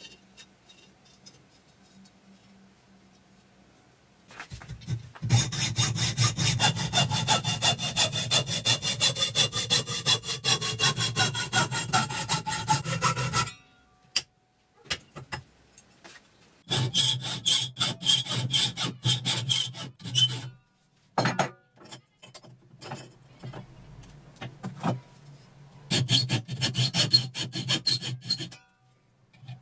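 Hand hacksaw cutting metal square tubing clamped in a bench vise, in quick, even back-and-forth strokes. It starts about five seconds in and runs in three spells with short pauses between.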